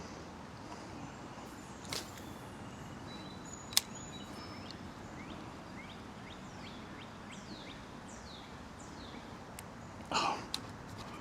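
Steady outdoor background hiss with a bird calling a run of short, falling high notes through the middle. A couple of sharp clicks come early, and a brief rustle near the end.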